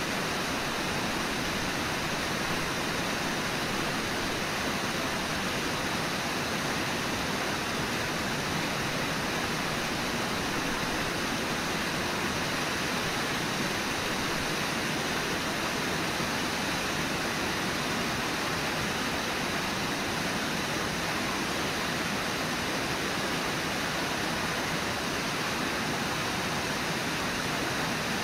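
Steady rush of river whitewater at a waterfall, an even, unbroken hiss of moving water.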